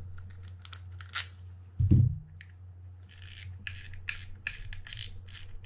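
Quantum Catalyst 40PTS spinning reel being handled, with light clicks and one loud low thump about two seconds in. From about three seconds the front drag knob is turned off in short twists, each a brief run of ratcheting clicks, close to three a second.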